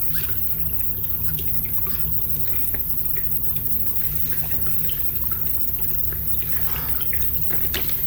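Small electric toy-car motor running steadily with a low hum, dotted with light irregular ticks.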